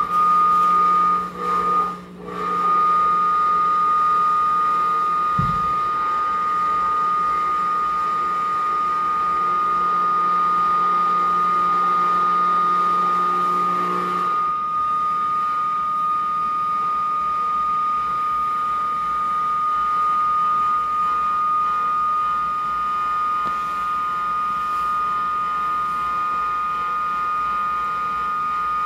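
Amplified improvised electronic sound setup giving a steady, sustained high tone with overtones. A lower hum under it cuts off about halfway through, and there is a single soft thud about five seconds in.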